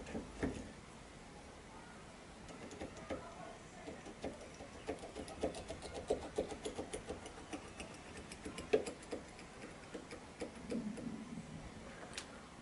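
Light metallic clicks and rattles from a restored bench-lathe tailstock as its quill is worked by hand, coming quickly, several a second, through the middle stretch, with one sharper click about three quarters through.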